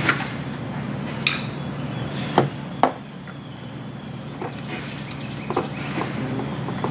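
Sharp clicks and taps of wire connectors and a screwdriver against a motorcycle battery terminal as cables are fitted and the terminal screw is worked: four louder clicks in the first three seconds, then lighter ticks, over a steady low hum.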